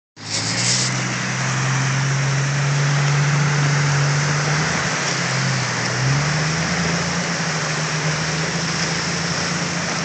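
Jeep Cherokee engine pulling steadily as it fords a creek, over the constant rush and splash of water thrown up by the tyres. The engine note dips briefly and then rises about six seconds in.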